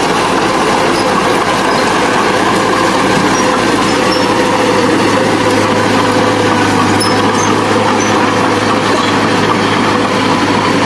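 Diesel engine of heavy earthmoving machinery running steadily, with a constant low hum and even mechanical drone.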